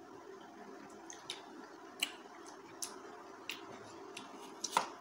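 People eating fresh fruit: soft wet chewing and a handful of short, sharp clicks of forks on the plate. The loudest click comes near the end.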